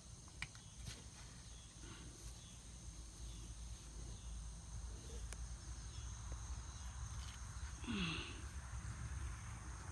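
Insects chirping steadily over a low rumble, with a few faint clicks, and about eight seconds in a short, low call that falls in pitch, a cow's brief grunt.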